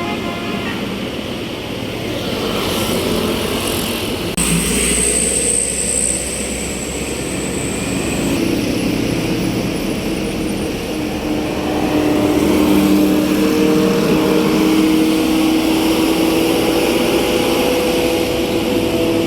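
A large tour bus's diesel engine running as it passes and pulls away, its engine note rising slowly from about halfway through. A high, steady whine joins for a few seconds about four seconds in.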